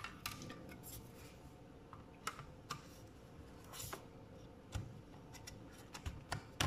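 Aluminium bottom cover of a MacBook being pressed and fitted back onto the chassis by hand: scattered light clicks and taps of metal on metal.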